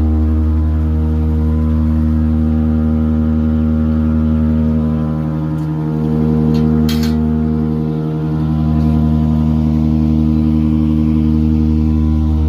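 Septic tank cleaning truck's engine running steadily at a constant speed, a loud even hum that dips briefly twice, with a short hiss or rattle about seven seconds in.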